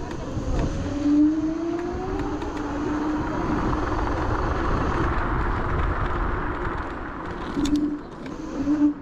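Dualtron Thunder 2 electric scooter pulling away from a stop: its dual hub motors whine, rising in pitch over the first few seconds as it speeds up, under a rushing noise of wind and tyres that grows with speed.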